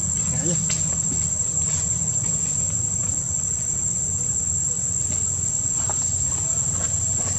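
Steady, high-pitched insect drone that holds one pitch, over a low steady rumble, with a few faint ticks.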